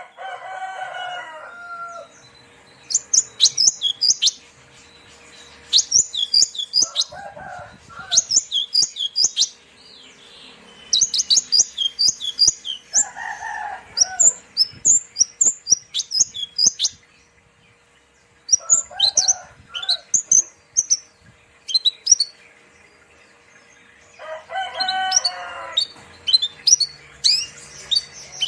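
Javan bush lark (branjangan) singing: repeated bursts of rapid, high chirping phrases, each a second or so long, broken by short pauses. Lower, longer drawn-out calls come in about every five or six seconds between the phrases.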